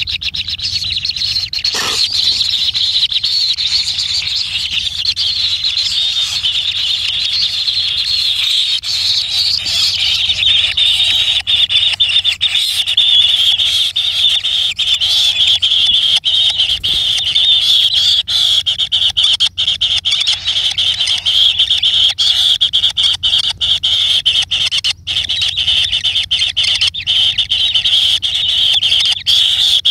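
A continuous high-pitched rasping animal call or chorus, made of rapid pulses, growing a little louder about ten seconds in.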